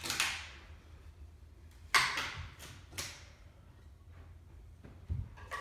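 Sharp knocks and cracks from a wooden stair handrail and its balusters being wrenched loose by hand. One comes just after the start, then a quick run of about four about two to three seconds in, the first of these the loudest.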